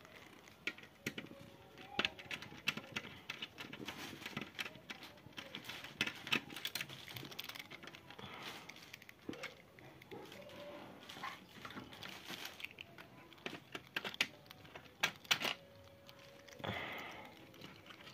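Irregular light clicks and taps of a screwdriver and fingers working at screws and fittings on the sheet-metal chassis of a Dell OptiPlex 3011 all-in-one computer, with a short louder rustle near the end.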